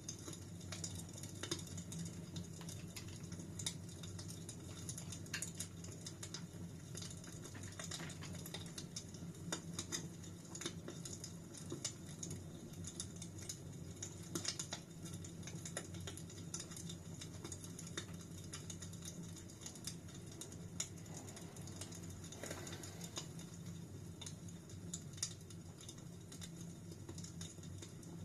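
Wood fire crackling: frequent, irregular sharp pops and snaps over a low steady rumble of the burning fire.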